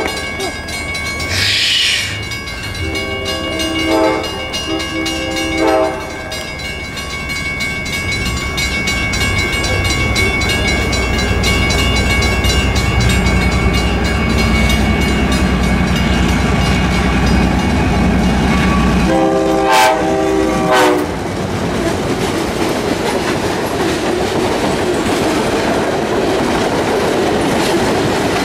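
Two EMD MP15AC diesel switcher locomotives (12-cylinder 645 engines) hauling a freight train. The K5LA air horn sounds twice a few seconds in, the engines' rumble grows as they approach, and the horn sounds two more times about twenty seconds in as the lead unit passes. After that the freight cars' wheels clack over the rail joints.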